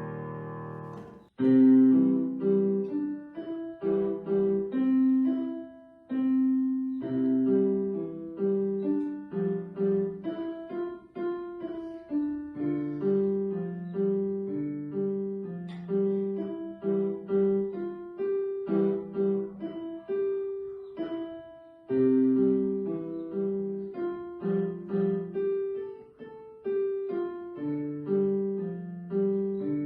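Piano music: a held chord dies away and stops just over a second in, then a new piece starts, a simple melody of separate notes over a lower accompaniment.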